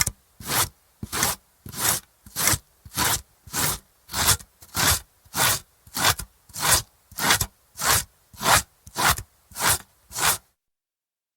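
A carrot being grated on a metal grater in steady, even strokes, a little under two per second, each a rasping scrape. The strokes stop suddenly near the end for about a second of silence.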